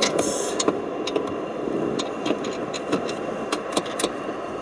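A socket wrench with a long 14 mm socket undoing a steering-column mounting bolt, giving scattered sharp clicks, over a steady mechanical hum.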